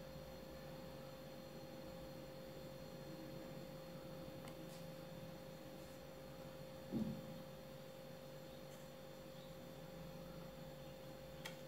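Faint steady electrical hum with one constant tone, and a brief low bump about seven seconds in.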